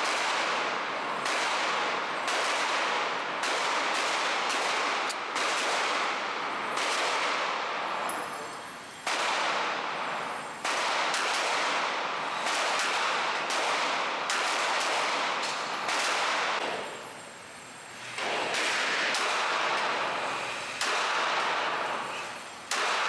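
Handgun shots fired one after another at an uneven pace, each crack trailing off in a ringing echo, with a couple of brief pauses between strings of shots.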